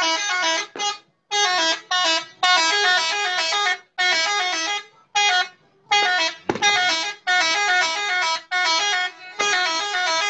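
Truck telolet horns playing quick multi-note tunes, the pitch stepping up and down, in a string of about a dozen short blasts with brief gaps between them. There is a single thump about six and a half seconds in.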